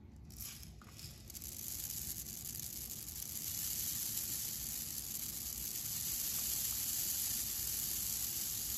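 Steady hiss of water rushing into a clear media reactor packed with filter media, building over the first two seconds and then holding steady.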